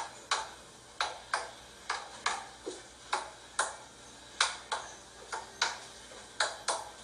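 Two duct-tape-wrapped PVC pipe sticks tapped against each other: about a dozen sharp knocks, mostly in pairs a fraction of a second apart, each with a short ring.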